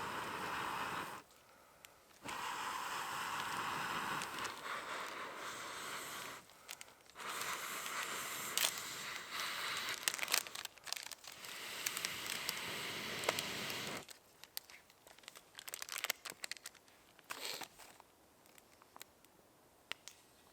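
Fat sizzling and spitting in a carbon steel pan over a campfire, a steady hiss full of sharp pops. The sizzle breaks off abruptly twice and gives way to faint scattered crackles for the last several seconds.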